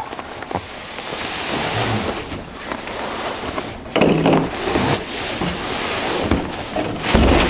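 Fabric ice-shelter carry bag scraping and rustling as it is dragged out of a cardboard box, over steady wind noise on the microphone. There are louder scuffs about four seconds in and near the end.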